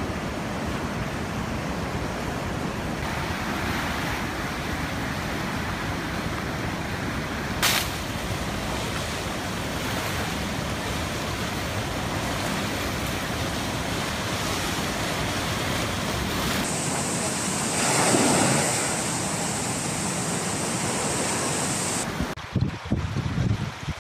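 Steady rushing noise of wind and floodwater on a phone microphone, with a single sharp click about eight seconds in. The noise changes character twice, and near the end gusts of wind buffet the microphone.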